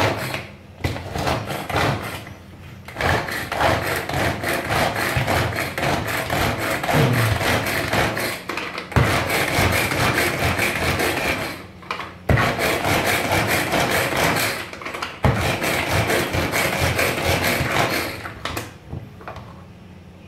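Hand-operated plastic food chopper mincing onion: rapid, continuous clicking and rattling from its blades and mechanism, in long runs with a few brief pauses. It stops near the end.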